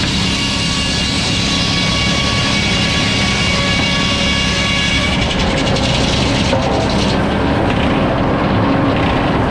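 Sawmill running and sawing a log: a steady, loud machine drone with a high whine over it.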